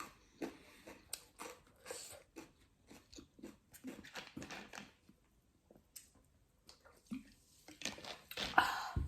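Close-miked crunching and chewing of raw salad vegetables: a run of short crisp bites and chews, a pause, then a louder burst of crunching near the end.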